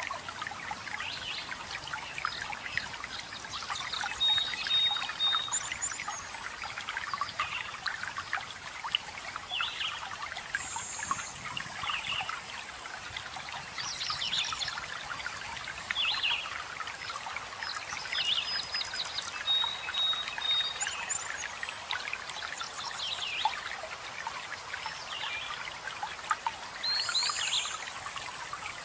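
Running water trickling and splashing steadily, with several songbirds chirping and whistling short phrases over it.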